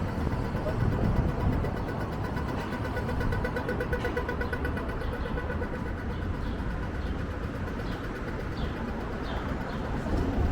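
City street traffic with a vehicle engine running, a steady pulsing hum, over a constant low wind rumble on the microphone. A run of short high chirps comes in the second half.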